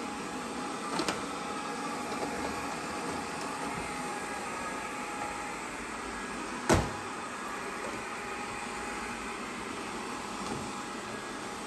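GleeU GRS1 robot vacuum running with a steady whir of motor and brushes, with a single sharp knock a little past halfway and a fainter click about a second in.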